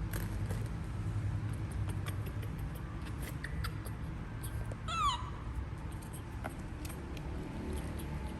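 A baby monkey gives one short, high call that falls in pitch about five seconds in, over scattered light clicks and a steady low hum.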